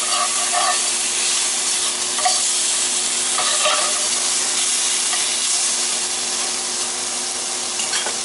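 Strips of beef steak sizzling in a stainless-steel skillet, with a steady hiss of frying. A metal spatula scrapes and turns the meat now and then during the first few seconds.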